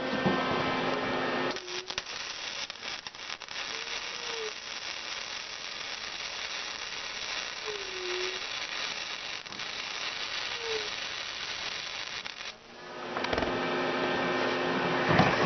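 MIG welding arc from a Lincoln Power MIG 180 Dual, crackling steadily for about eleven seconds while a bead is laid. It starts about a second and a half in and cuts off about three seconds before the end. A steady hum is heard before the arc strikes and again after it stops.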